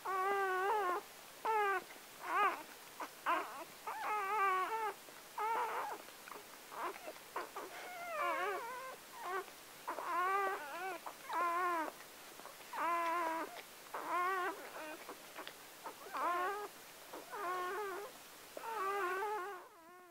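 Newborn Gordon Setter puppy crying: a string of short, high-pitched, wavering squeals, roughly one a second.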